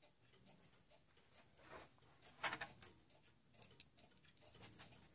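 Near silence with faint, irregular clicks and ticks; the loudest comes about two and a half seconds in.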